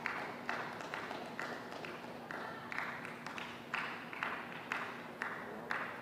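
A run of sharp smacks echoing in an indoor badminton hall, about two a second and uneven in spacing.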